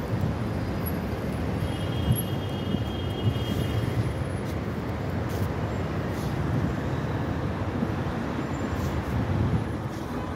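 City street traffic: cars and a motor scooter driving past on a multi-lane road, a steady road noise with small swells as vehicles go by.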